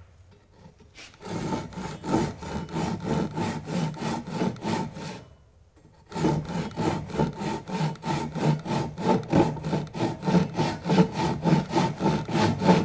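Ryoba Japanese saw, crosscut teeth, cutting a shallow kerf across a wooden block in short quick strokes, about four a second. The rasping starts about a second in and stops for about a second midway before resuming.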